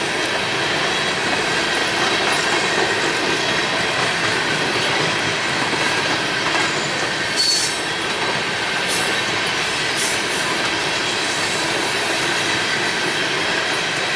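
Freight train cars rolling past close by: a steady rumble of steel wheels on rail, with a brief high wheel squeal and sharp clicks about halfway through and a couple of fainter clicks shortly after.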